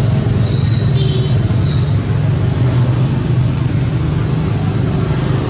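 Steady low rumble of an engine running, unchanging throughout, with a few faint, brief high chirps about a second in.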